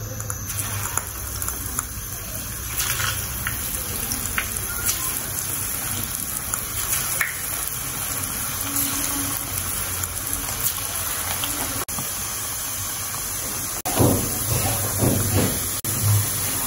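Fish meatballs frying in hot oil in a pan, the oil sizzling and bubbling steadily. Near the end, a few louder low knocks sound over the sizzle.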